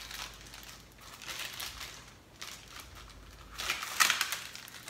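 Clear plastic packaging sleeve around a fishing rod crinkling and rustling as it is handled and pulled off, in several bursts, the loudest about four seconds in.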